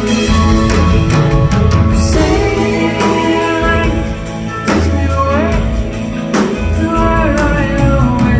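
Live band playing an instrumental passage: a lead electric guitar line with bending notes over bass and drums.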